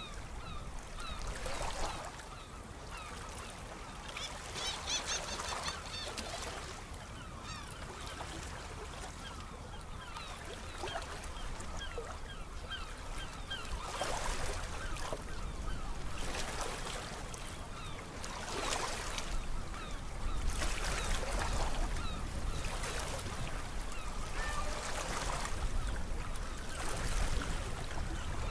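Sea waves washing in, swelling and falling back every few seconds and growing louder over the second half, with birds calling over the surf.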